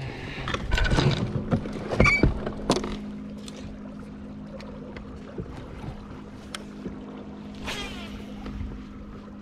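Knocks and clatter in the first few seconds as the bow-mounted electric trolling motor is lowered, then its steady electric hum. About eight seconds in, a brief whir of line running off a baitcasting reel during a cast.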